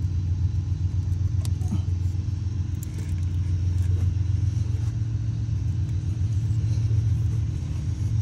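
A steady low mechanical hum with a few faint clicks of the O2 sensor's plastic wiring connector being worked loose by hand.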